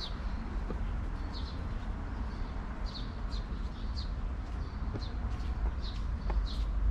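Songbirds chirping in the trees, short high calls repeated every half second or so, over a steady low rumble with a few faint steps.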